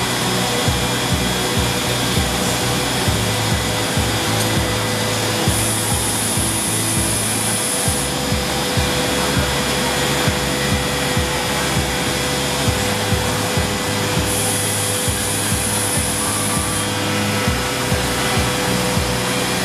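CNC woodworking router running as its spindle machines a wooden workpiece: a steady machine noise, with a thin high whine joining twice for a couple of seconds. Background music with a steady beat plays underneath.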